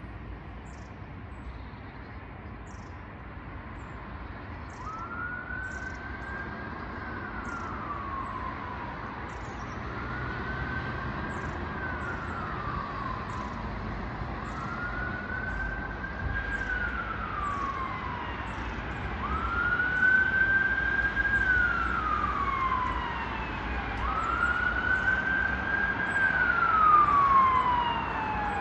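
Emergency vehicle siren wailing: a slow rise, a brief hold and a fall, repeating about every five seconds and growing louder as it comes closer. Low city traffic rumble runs underneath.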